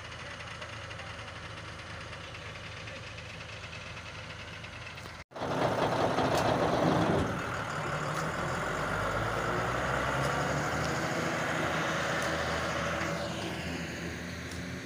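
Tipper truck's diesel engine running steadily at idle. About five seconds in the sound cuts and comes back louder and closer, with a brief surge of about two seconds before it settles to steady running.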